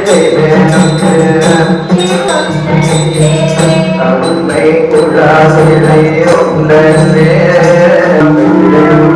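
South Indian Carnatic-style music: a steady drone under a wavering melody, with frequent sharp drum strokes.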